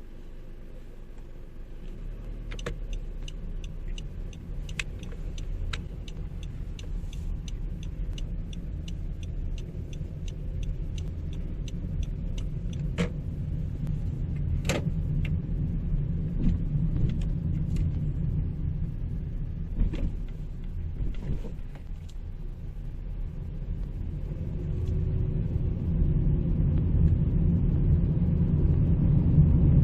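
Inside the cabin of a 2018 Honda Civic 1.8 i-VTEC on the move: a low engine and road rumble that grows louder over the last few seconds. Over the first half there is a run of regular ticks, about two a second, and a few single knocks follow.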